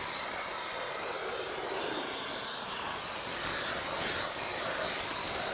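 Two-component spray-foam kit gun spraying insulation foam onto a rim joist, a steady hiss with no break.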